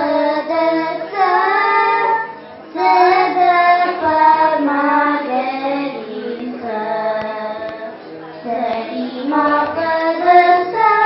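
Young girls singing a melodic song into handheld microphones, with held, gliding notes and a short break about two and a half seconds in. A steady low drone sounds underneath.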